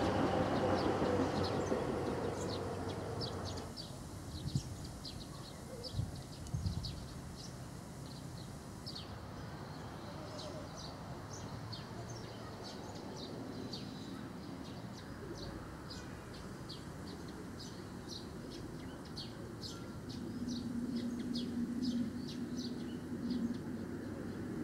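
A passing train fades away over the first few seconds with a falling whine. Small birds then chirp in quick, short, high notes over a quiet outdoor background, and a low steady hum comes in near the end.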